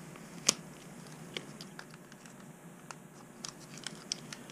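Light clicks and taps of small machine screws and washers being handled and fitted to a fish finder mount, with one sharper click about half a second in.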